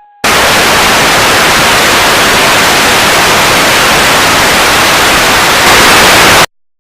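Loud static hiss cutting into an emergency alert broadcast about a quarter second in. It runs for about six seconds, grows a little louder in its last second, then cuts off suddenly into silence: the alert message being blocked, its signal jammed.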